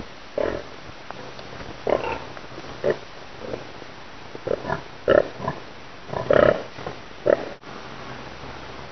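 Domestic pigs in a pen grunting, a series of short separate grunts over a steady low hum.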